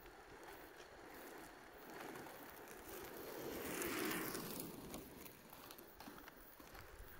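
Inline skate wheels rolling on rough asphalt as a skater passes close by: a rolling hiss that swells to its loudest about four seconds in, then fades as he skates away.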